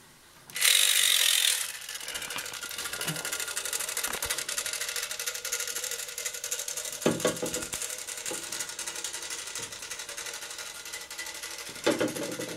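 Clockwork spring motor of a J.B. Courty tin toy boat running. It is loudest for about a second near the start, then settles into a steady, rapid whirring tick as it drives the propeller. Two brief knocks come about seven and twelve seconds in.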